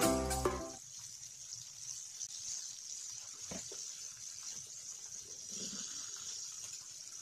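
Chicken karaage deep-frying in a pan of hot oil, a steady sizzle, the pieces golden and near the end of frying. Background music fades out in the first second.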